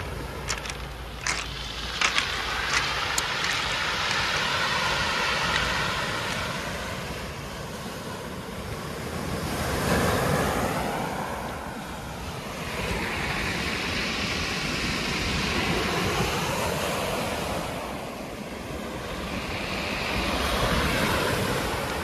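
Ocean surf breaking and washing up and back over a pebble beach, the hiss swelling and fading every five or six seconds. A few sharp pebble clicks in the first few seconds, and wind rumble on the microphone throughout.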